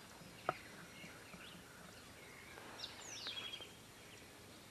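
Small songbirds chirping and whistling, with one clear whistle sliding down in pitch about three seconds in. A single sharp click about half a second in.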